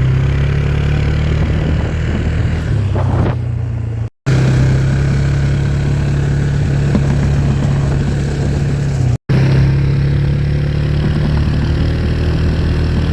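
Four-wheeler (ATV) engine running steadily under way on a test ride after a fresh oil change. The sound cuts out completely for an instant twice, about four and nine seconds in.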